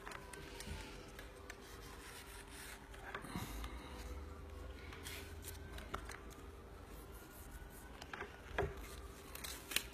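Faint rubbing and rustling of a fringed cardstock strip as fingers press its glued fold flat, with a few light clicks here and there.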